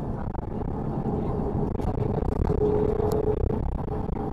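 Interior of a moving TransJakarta city bus: steady engine and road rumble. A thin steady whine joins in for about two seconds in the middle, and there is a short click a little after three seconds in.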